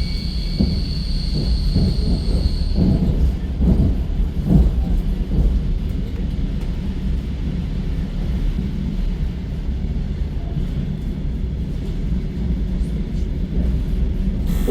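Electric commuter train running on the rails, heard from inside the carriage: a steady low rumble, with the wheels knocking irregularly over rail joints during the first few seconds. A thin high whine fades out about three seconds in.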